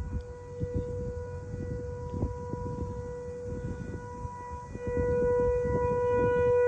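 ASC T-128 single-tone rotating outdoor warning siren sounding a steady alert tone: one held pitch with its overtones, growing louder about five seconds in as the rotating horn swings toward the listener. The siren is on its scheduled monthly test.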